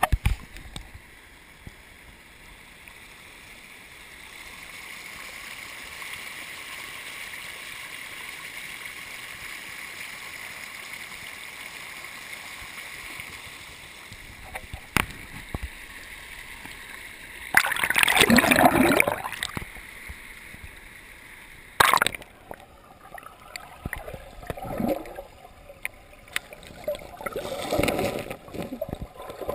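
Running water: a steady rush for the first half, then a loud burst of noise lasting about two seconds past the middle, a sharp knock, and irregular splashy bursts near the end.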